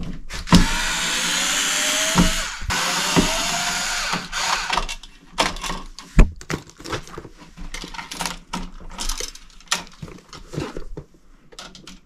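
Cordless screwdriver running in two bursts of about two seconds each, backing out the cover-plate screws of a wall light switch. After that come scattered clicks and knocks as the plate and switch are handled, with one sharp knock near the middle.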